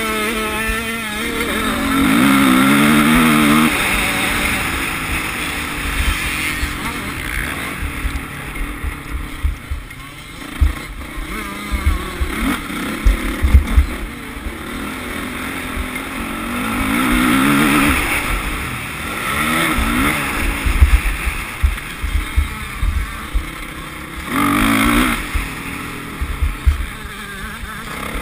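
Motocross bike's engine, heard from on board, revving up and dropping back again and again as it accelerates out of corners and shifts gear, with constant wind rumble and knocks on the microphone.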